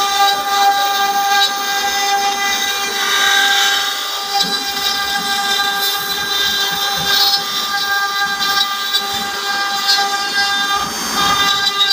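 CNC router spindle running with a steady high-pitched whine over a hiss, its bit carving relief detail into a wooden door panel.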